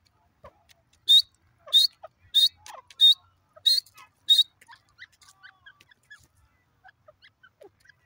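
Grey francolin giving a series of six short, sharp, high call notes at an even pace, about two-thirds of a second apart, starting about a second in. Afterwards only faint scattered ticks remain.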